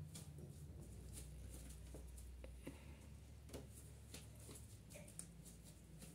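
Near silence: faint scattered ticks and rustles of a cat moving about inside a fabric pop-up pet playpen, over a low steady hum.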